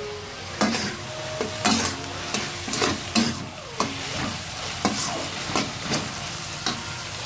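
Spatula stirring and scraping a pan of frying chicken, diced carrot and sambal, striking the pan about once or twice a second over a steady sizzle from the little water just added.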